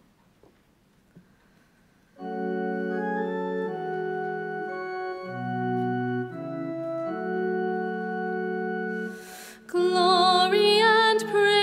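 Organ playing a psalm introduction in held, sustained chords, starting about two seconds in. Near the end a woman's voice joins, singing with vibrato over the organ.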